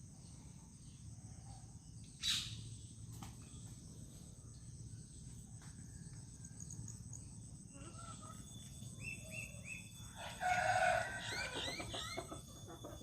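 A rooster crows once, about ten seconds in, over a steady low background hum. Small birds chirp around it. There is also a single short, sharp call or snap about two seconds in.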